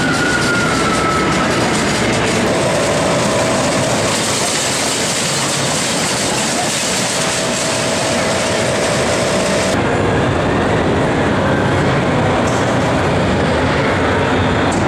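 Dragon-themed kiddie roller coaster train rolling along its steel track: a steady rail rumble and clatter over the general din of a large hall. The sound changes abruptly, losing its hiss, about ten seconds in.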